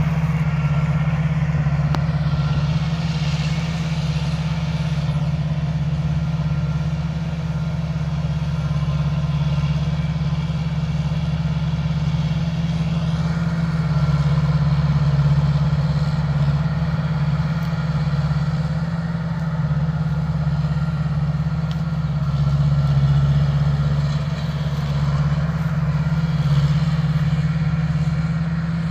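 Combine harvester running steadily while cutting rice, its engine a continuous low hum that swells a little in level now and then.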